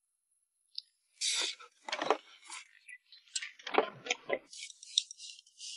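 Close-miked eating sounds in short irregular bursts: chopsticks clicking against a clay pot of rice and snails, and slurping, sucking mouthfuls.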